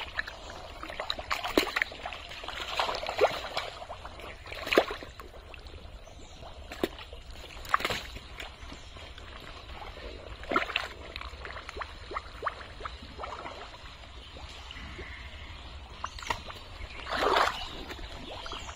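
Hands working through thick, watery pond mud: irregular wet splashes and slaps a second or several apart over a low sloshing background, the longest and loudest splash near the end.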